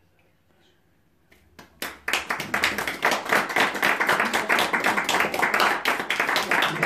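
A small group of people clapping. The clapping starts about two seconds in, after a short quiet pause, and runs on dense and steady.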